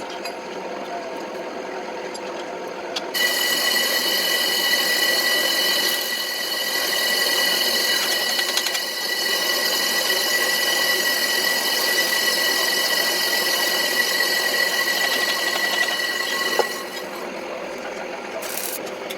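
Electric power tool working on a steel plate: it starts suddenly about three seconds in with a steady high whine over a harsh hiss, and cuts out a couple of seconds before the end.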